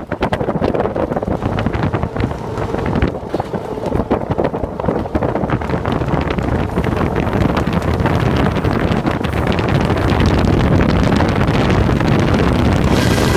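Wind rushing over the microphone at the open front window of a vintage trolley car running at speed on the rails, with rapid flapping and rattling. The rush grows steadier and a little louder from about halfway through.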